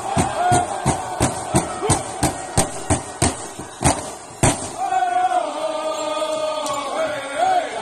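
Powwow drum group: singers around a shared hand drum, striking it together about three times a second while singing in unison. The drum strokes stop about four and a half seconds in, and the singers carry on alone with a sliding, wavering line.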